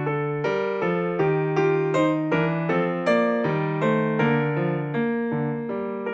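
Background music on electric piano, notes and chords struck a few times a second, each fading before the next.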